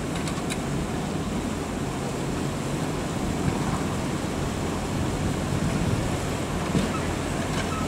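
Diesel engine of a truck-mounted crane running steadily, a low hum under a continuous rushing noise, with a few faint clicks.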